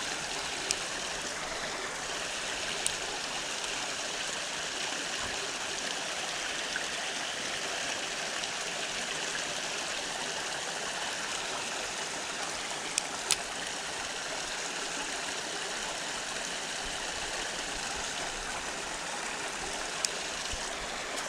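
Creek water running steadily, with a few brief clicks now and then.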